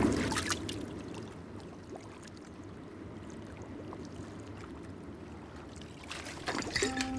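A fishing float splashes on the water, then soft water lapping continues. Near the end come irregular liquid sloshes and clicks as a bottle is tipped up and drunk from.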